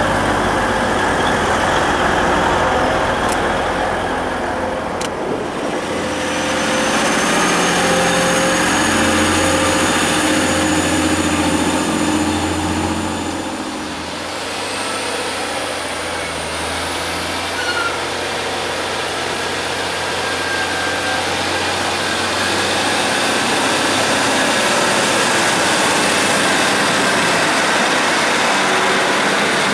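Diesel multiple-unit trains running: a TransPennine Express unit pulling away with a low engine hum and a faint high whine slowly rising. About halfway through, a second diesel unit, in East Midlands Trains livery, runs along the platform with a high whine rising in pitch.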